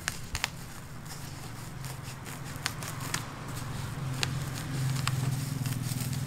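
Scissors cutting a sheet of insulation foam, with a few sharp clicks of the blades at irregular intervals. A steady low hum runs underneath and grows louder about four seconds in.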